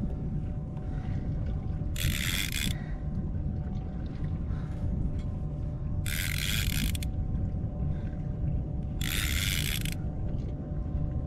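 A fishing reel's drag buzzing in three short bursts, each under a second and a few seconds apart, as a strong cobia pulls line off against it. A steady low rumble runs beneath.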